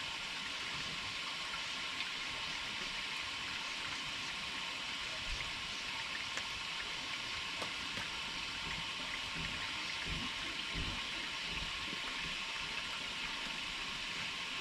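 Rinse water running steadily through an RV black tank and out the drain hose as the tank is flushed clean, with a few faint low knocks about ten seconds in.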